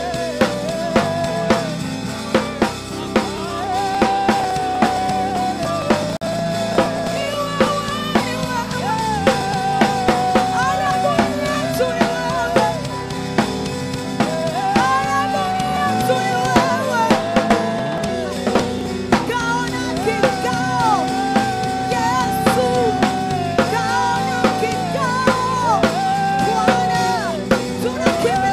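Worship band music: a drum kit keeps a steady beat with sharp snare hits under a held, gliding melody line and sustained chords.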